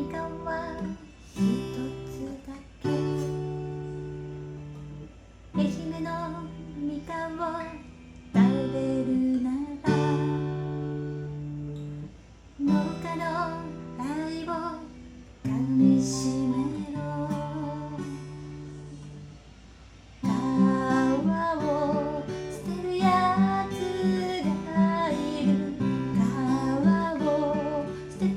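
Acoustic guitar strummed in ringing chords, with a voice singing softly over it. About twenty seconds in, the guitar moves into a steady, busier strumming rhythm.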